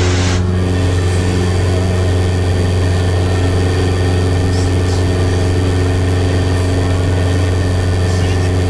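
Mooney M20J's four-cylinder Lycoming engine and propeller at full takeoff power, a loud steady drone that holds its pitch, heard from inside the cockpit as the plane lifts off. A high hiss drops away about half a second in.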